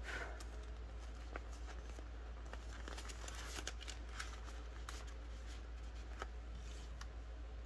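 Faint rustling and crinkling with scattered light clicks from plastic binder envelopes and polymer banknotes being handled and turned in a cash-stuffing binder.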